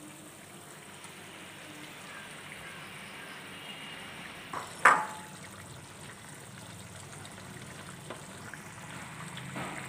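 Curry gravy simmering in a frying pan with a steady soft bubbling hiss as pieces of fried fish are added, and one sharp, brief sound about five seconds in.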